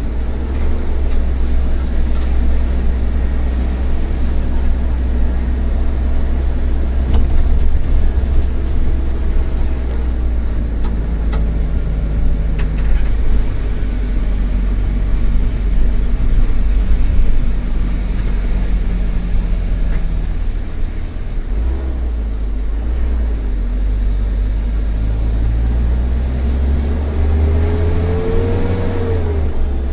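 Old intercity bus's engine running under load, heard from inside the bus: a deep, steady drone whose pitch steps up and down several times as it works through the gears. A short rising-then-falling whine comes near the end.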